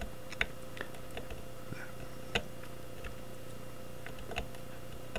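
Faint, irregular ticks and light scrapes of a fine needle file worked on the face of a small steel maker's-mark punch, about a dozen small strokes, over a steady low hum.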